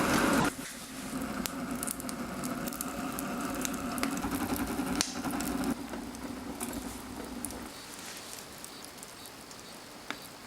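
Wood fire crackling in a fireplace stove, with scattered sharp pops over a steady rush of burning. A louder noise stops about half a second in, and the fire sound fades toward the end.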